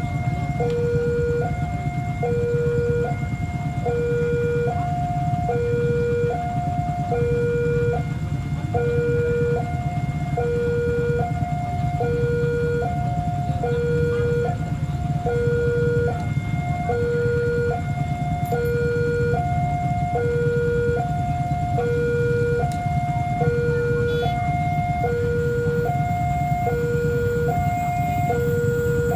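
Railway level-crossing warning alarm sounding a two-tone signal, a lower and a higher tone alternating, each held just under a second, over a steady low rumble. It is the warning that a train is approaching the crossing.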